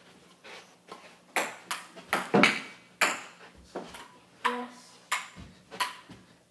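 A table tennis rally: the ball clicking sharply off the paddles and bouncing on the table, about two clicks a second, some with a short ring.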